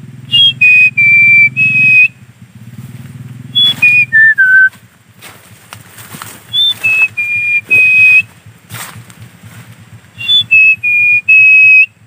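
A man whistling a bird call through pursed lips to lure birds. There are four short phrases, each starting on a high note and settling into a few held, slightly lower notes. One phrase falls in steps.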